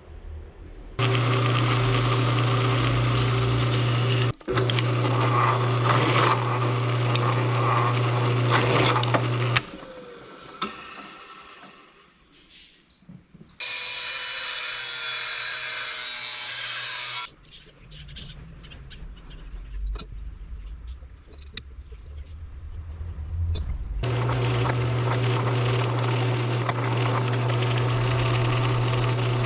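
Electric workshop power tool running with a steady hum and a grinding hiss, heard in several short edited clips. Between the clips, about ten seconds in, there is a quieter stretch with a few scattered clicks and taps.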